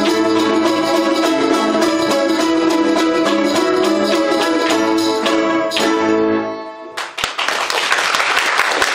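Balalaika ensemble playing with quick tremolo strumming, closing on its final chords about six and a half seconds in. The audience then breaks into applause.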